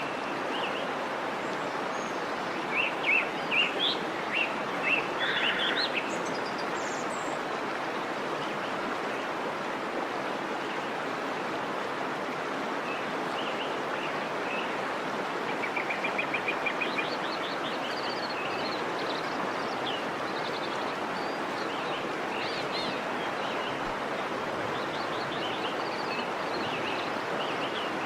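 Steady rush of flowing stream water with small birds chirping over it, including a flurry of chirps a few seconds in and a rapid trill of notes about halfway through.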